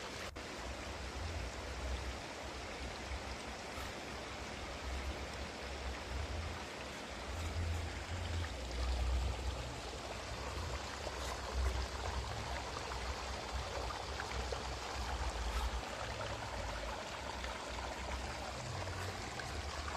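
Steady hiss of background noise with an uneven low rumble, under faint rustling of cotton yarn being worked with a crochet hook.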